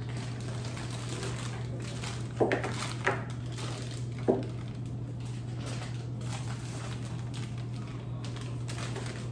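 Zip-top freezer bags of raw meat being loaded into a refrigerator's freezer compartment: plastic rustling with three knocks about two to four seconds in, over a steady low hum.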